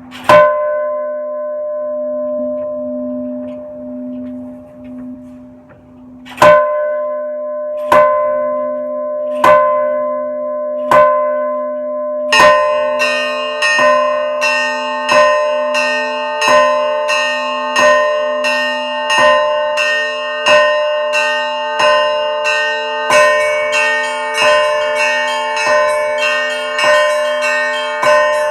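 Orthodox church bells being rung. One heavy stroke is left to ring out for several seconds, then four slow strokes come about a second and a half apart. From about halfway, several bells of different pitch sound in a quicker, steady pattern of about three strokes every two seconds, with higher bells joining near the end. A low hum from the big bell lingers underneath.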